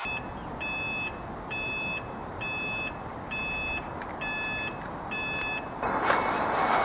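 Railway level crossing warning alarm beeping at an even pace, about one high-pitched beep a second, while the crossing is closed to road traffic. About six seconds in, a louder rush of noise takes over.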